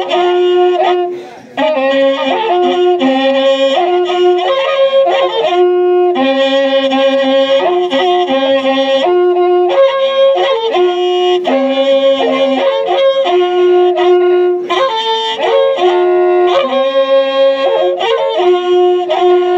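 Two wakrapukus, Andean spiral trumpets made of cattle-horn segments, played together in a melody of long held notes that step between a few pitches, with short breaks between phrases.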